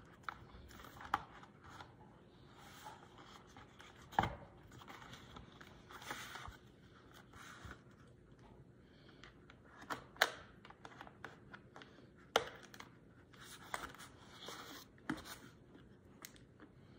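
Hard plastic parts of a paint spinner being handled and fitted together: scattered sharp clicks and knocks with quieter scraping and rubbing in between.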